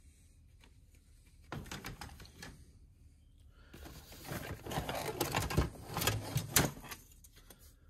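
Salvaged car parts being rummaged through in a cardboard box: plastic and metal pieces rustling and clattering against each other. There is a short burst about a second and a half in, then a busier stretch of clatter with a few sharp knocks near the end.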